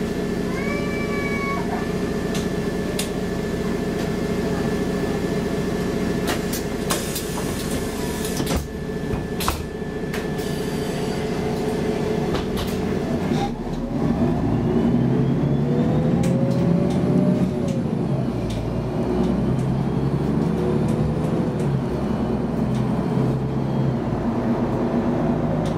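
Inside a Mercedes-Benz Citaro G articulated bus: its OM 457 hLA six-cylinder diesel runs steadily at idle, with a short warbling tone at the very start and a few clicks and knocks. About halfway through, the engine note grows louder and changes as the bus pulls away through its Voith automatic gearbox, with a whine rising in pitch.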